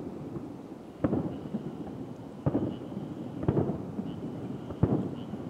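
Aerial firework shells bursting: four sharp bangs about a second or so apart, each trailing off in a rumbling echo.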